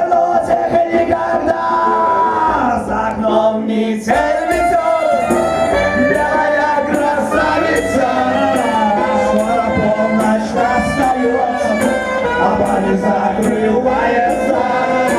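Live performance of a pop song: sung vocals over instrumental accompaniment, loud and steady, with the texture changing about four seconds in.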